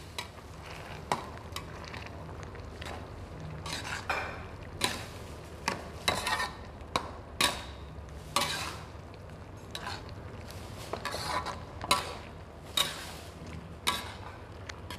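Metal spatula stirring and scraping around a metal wok of pork and vegetables in gravy, the strokes coming irregularly about once a second. The cornflour slurry is being stirred in to thicken the gravy.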